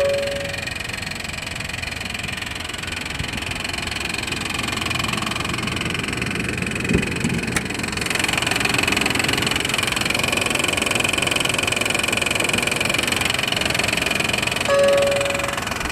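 A 1995 Honda Passport's Isuzu-built 3.2 V6 idling with a knocking, ticking racket, which the owner thought was an exhaust leak but fears may be much worse, such as a lifter tick. The engine noise gets louder about eight seconds in. A short beep sounds at the start and again near the end.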